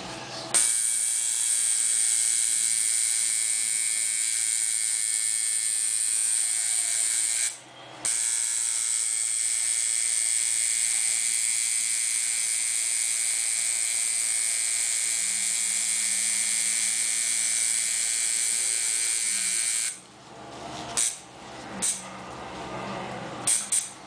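Tattoo machine buzzing steadily as the needle works the skin, stopping for half a second about 8 seconds in and cutting off near 20 seconds. A few light clicks follow.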